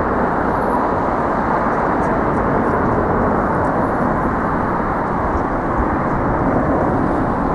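Steady, loud rushing noise with no distinct events; no goose calls stand out.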